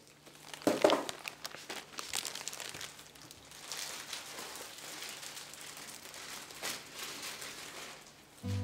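Plastic bag crinkling and rustling in irregular bursts as Christmas tree ornaments are handled, with a few light knocks. Music starts just before the end.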